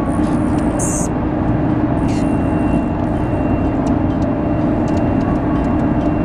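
A steady low rumble with a faint constant hum, like nearby traffic or an engine, broken about half a second and two seconds in by short, very high chirps from rufous hummingbirds.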